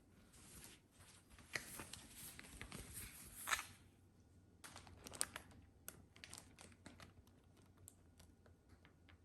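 Faint rustling and crinkling of packaging being handled, then a run of sharp crackles and clicks.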